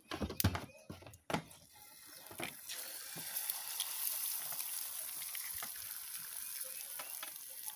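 A few short knocks, then guinea fowl eggs frying in hot oil in a frying pan: a steady high sizzle that builds up about two and a half seconds in and holds.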